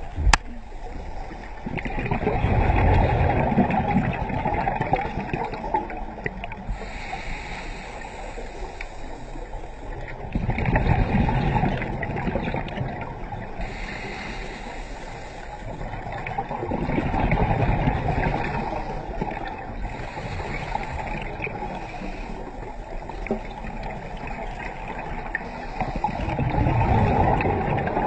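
A scuba diver breathing through a regulator underwater: four rushing, gurgling bursts of exhaled bubbles about every seven seconds, with a quieter hiss of inhaling between them.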